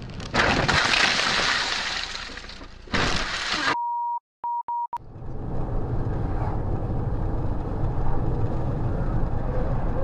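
A car hits a large wheel loader: a loud crunch with scraping for about two seconds, then another short burst. A steady high bleep follows, broken twice. From about halfway on comes the steady road and engine rumble heard inside a moving car.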